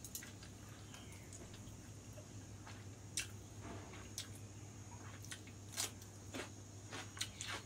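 Close-up eating sounds of someone chewing noodles: scattered soft smacks and small mouth clicks, with a sharper crunch just before 6 seconds in as a cucumber slice is bitten.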